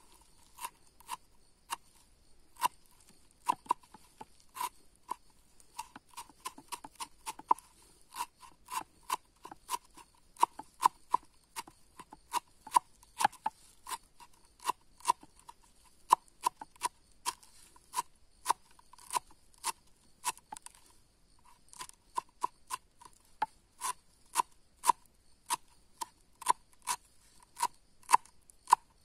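Kitchen knife chopping fresh herbs on a wooden cutting board: steady, sharp knife strikes on the board, about two a second, with a short break about 21 seconds in.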